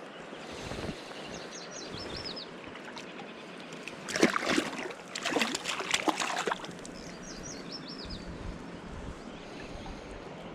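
Steady rush of a mountain river, with a songbird singing twice, each time a short run of high falling notes. In the middle come a few seconds of irregular splashing in the water.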